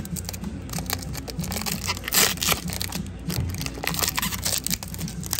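Clear plastic cling wrap (Saran wrap) crinkling and tearing as it is pulled off an amplifier by hand, in irregular crackles with a louder rip about two seconds in.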